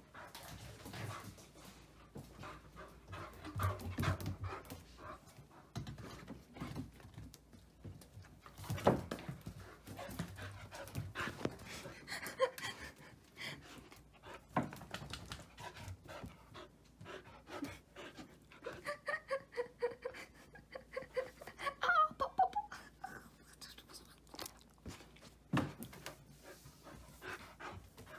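Old English Sheepdog puppy panting hard with excitement, broken by scattered clicks and knocks. Short whining calls come in about two-thirds of the way through.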